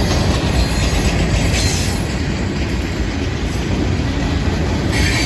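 Freight cars of a Florida East Coast Railway train rolling past close by, a steady heavy rumble with wheels clattering over the rail joints.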